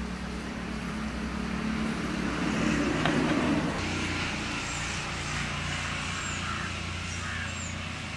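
A steady low mechanical hum, with a few faint high chirps in the second half.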